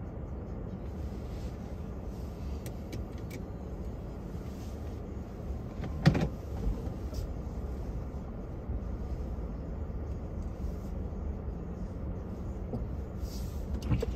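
Steady low rumble of a car driving, with a sharp knock about six seconds in and another near the end.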